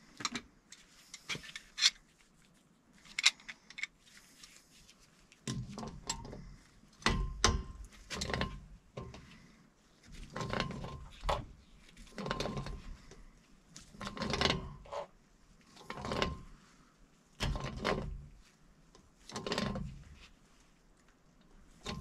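Sharp metal clicks of tools being handled, then a wrench working a threaded pipe fitting in repeated strokes, each one a short metallic clank, about one every second or two.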